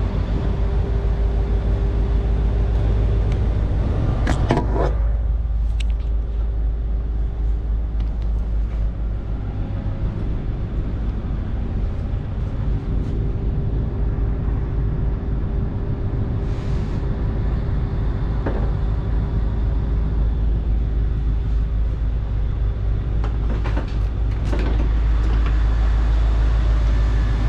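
Regional train's steady low rumble with a faint continuous hum. Short clattering sounds come about four seconds in and again near the end.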